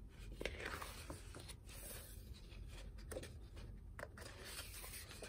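Faint rustle of a glossy photobook page being turned by hand, with a few soft paper taps.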